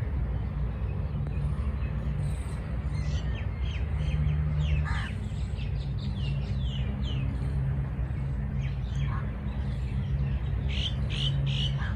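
Several birds calling: quick runs of short, falling chirps in two spells, mixed with a few louder, harsher calls. A steady low rumble runs underneath.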